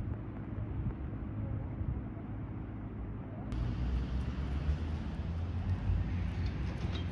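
Wind rumbling on the microphone over open water, then after a cut about three and a half seconds in, outdoor street ambience with vehicle traffic and a few faint clicks near the end.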